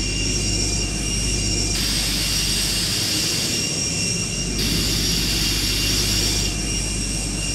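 Jet-engine whoosh sound effect for a toy firefighter jetpack: a steady hiss over a low rumble, the hiss growing brighter for stretches and dimming again.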